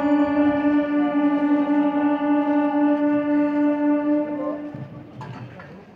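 Train horn sounding one long, steady blast at a single pitch, which stops about three-quarters of the way through.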